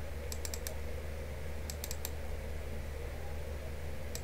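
Quick bursts of about four sharp clicks from a computer keyboard, twice, with another burst starting near the end, over a steady low hum.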